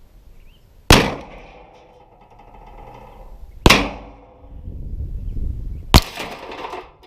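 Three revolver shots, a couple of seconds apart, each followed by a short decaying echo.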